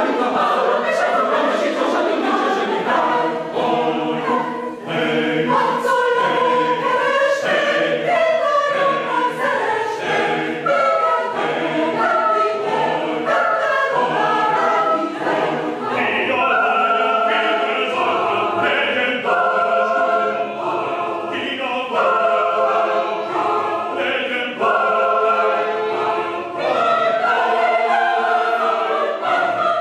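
Mixed choir of women's and men's voices singing a cappella, many voices holding chords that shift from note to note without a break.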